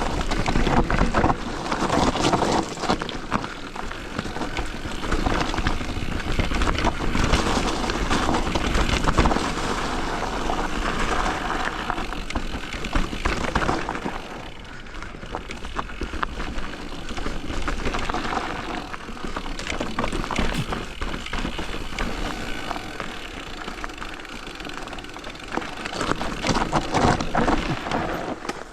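Electric mountain bike riding down a trail: tyres rolling over dirt and stones, with a dense crackle of small knocks and rattles as it goes over bumps.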